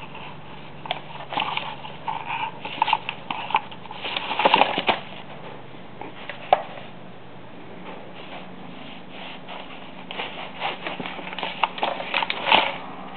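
A Siamese kitten scrabbling in a cardboard game-box lid, its claws scratching the cardboard and rustling paper money and game cards. The scratching and rustling come in two flurries, with a quieter lull in between.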